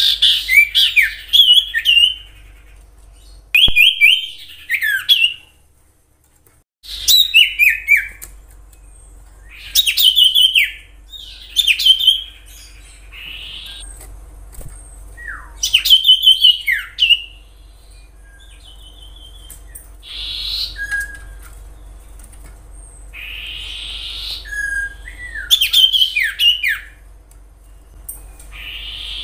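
Common iora singing: groups of quick, clear whistled notes that slide downward, repeated every few seconds, with a few harsh raspy notes between the groups.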